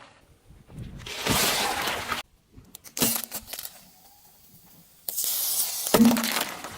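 Objects being crushed and cracking under a car, heard as three short bursts of crunching noise. The bursts start and stop abruptly, the last one with a knock in it.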